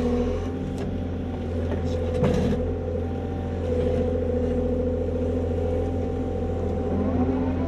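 Excavator's diesel engine running steadily under the cab, with a hydraulic whine that shifts in pitch as the joystick is worked. A few light clicks come in the first few seconds.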